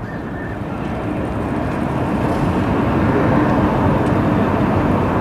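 City street ambience with a vehicle approaching. Its steady low hum comes in about a second in and grows louder over the general traffic noise.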